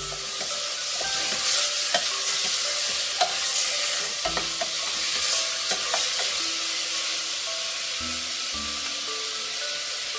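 Pork pieces sizzling in hot oil with sautéed garlic, onion and tomato in a pot, stirred with a utensil that clicks against the pot a few times. Faint background music plays under it.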